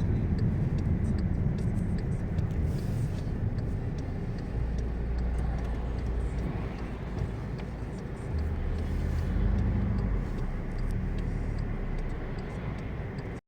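Car driving along a road, heard from inside the cabin: steady low engine and tyre rumble that swells a little in places and cuts off abruptly at the end.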